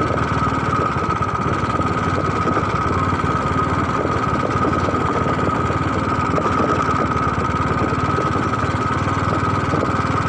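An engine running steadily at an even speed, loud and close, with a constant high tone over it.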